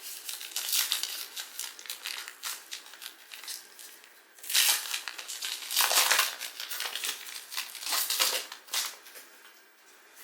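Crinkling and rustling of a foil trading-card pack wrapper being torn open and handled, a dense run of crackles with louder bursts about halfway through and again later.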